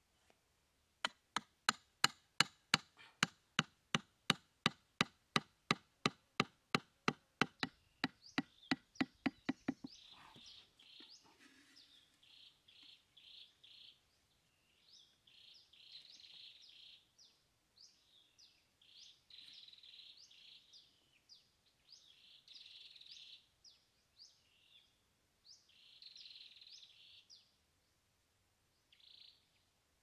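A fast, even run of sharp knocks, about three a second and quickening to about five, that stops about ten seconds in. After it come scattered high chirps in short bursts.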